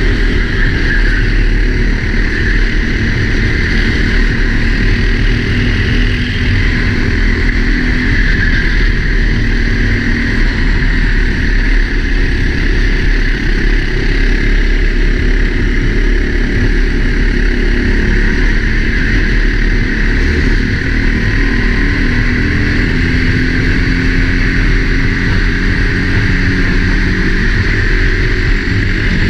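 Four-stroke Sodi kart engine running hard at racing speed, heard from a helmet camera: a loud, steady engine note with a constant rushing hiss.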